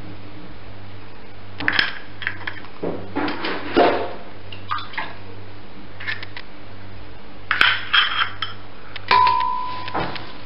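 Eggs being cracked on and into a glass blender jug: irregular taps, knocks and clinks of shell on glass, in small clusters. One knock near the end leaves the glass ringing briefly.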